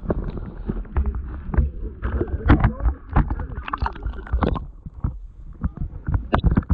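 Water sloshing and gurgling against a waterproof action camera's housing as it is held at the river's surface, going under and breaking through. Heard as a muffled low rumble with many irregular knocks and crackling splashes.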